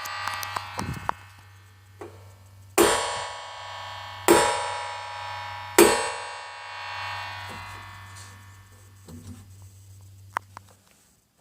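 Synthesized sci-fi elevator sound effect: a steady low hum with three bright, ringing chime-like hits about a second and a half apart, each fading slowly, and a few small clicks. The hum cuts off near the end.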